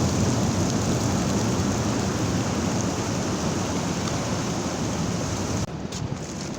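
Rushing roar of large breaking sea waves and their wash, a dense steady noise that eases slowly, with the high hiss dropping away suddenly near the end.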